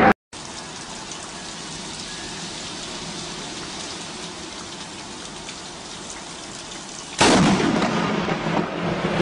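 Steady rain falling in a thunderstorm. About seven seconds in, a sudden loud thunderclap from a close lightning strike cuts in and keeps rumbling.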